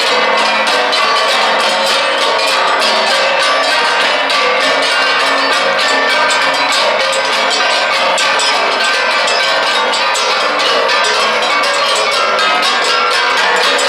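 Igorot gangsa (flat gongs), several beaten together in a fast, steady rhythm: dense metallic clanging with overlapping ringing tones.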